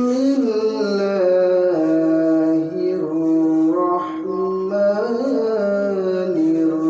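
A man's voice chanting Quranic recitation in the melodic tajweed style, holding long drawn-out notes that slowly rise and fall with only brief breaks.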